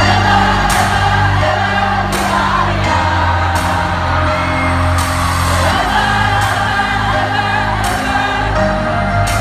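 Live concert music: a slow pop chorus sung by many voices at once, a stadium crowd singing along with the band over sustained bass, with a sharp beat about every one and a half seconds.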